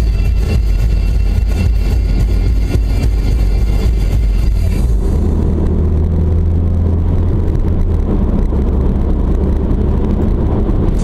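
Steady road noise of a car driving at speed, heard from inside the cabin: a low engine and tyre rumble with a broad hiss over it. The higher hiss drops away about halfway through.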